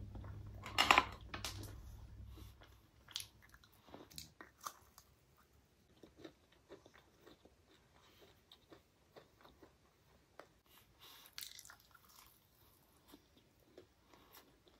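Close-up chewing of Indian sweets, with one loud crunchy bite about a second in, then many small wet mouth clicks and soft crunches. A low steady hum runs under the first two seconds. A fried, crimped gujiya pastry is bitten into near the end.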